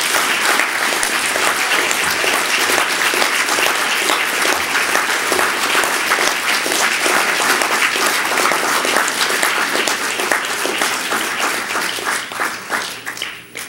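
Audience applauding steadily, the clapping thinning out and dying away near the end.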